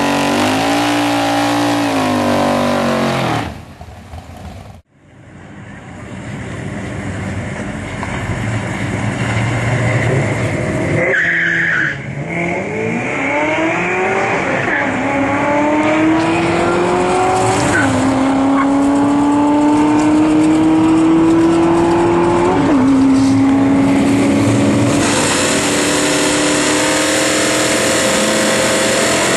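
V8-engined cars at a drag strip: first a pickup truck's engine held at high revs during a burnout, then after a cut a car accelerating hard, its engine note climbing and dropping back at two upshifts. Near the end a Plymouth 'Cuda's engine revs as it spins its rear tyres in a smoky burnout, with a hiss of tyre noise.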